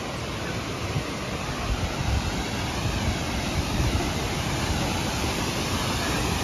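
Steady rushing noise of a waterfall, growing louder as it is approached, with wind buffeting the microphone in low gusts.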